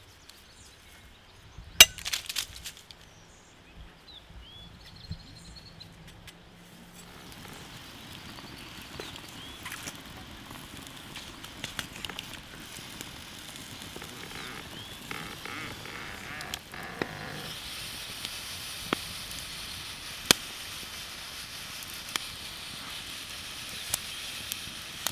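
Open wood fire under a whole roasting pig: crackling with scattered sharp pops, and small birds chirping. There is a loud crack about two seconds in. From about two-thirds of the way through, a steady sizzling hiss rises and runs on under the pops.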